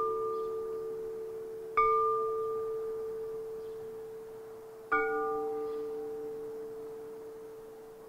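Celadon porcelain percussion struck twice, about two seconds in and again about five seconds in. Each stroke rings out in a long, slowly fading tone, over the ringing left from a stroke just before.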